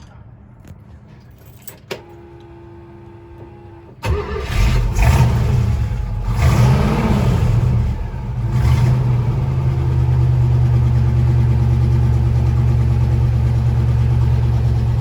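1969 International Scout 800A engine cold-started: a click about two seconds in, then the engine catches about four seconds in, revs up briefly a couple of times and settles into a steady idle.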